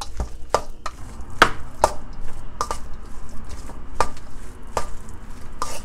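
A utensil stirring and mashing a thick baked-potato filling of potato, butter, sour cream, cheese, bacon and onions in a pan, with irregular knocks of the utensil against the pan, roughly one or two a second.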